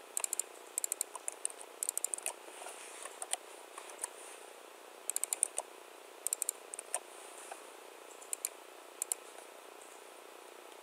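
Computer keyboard typing in short bursts of keystrokes, with pauses between them, stopping about nine seconds in.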